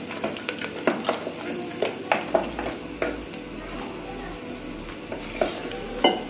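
Thick spinach gravy bubbling at the boil in an aluminium pot, with irregular pops and clicks several times a second and a sharper knock near the end.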